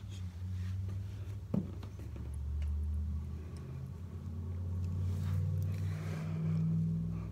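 Cars driving past on a nearby road, a low engine and tyre rumble that swells as a second car goes by near the end. A single sharp click about one and a half seconds in.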